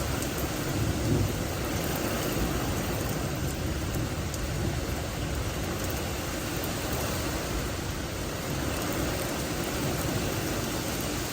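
Heavy rain falling steadily, with a low rumble of thunder swelling briefly about a second in.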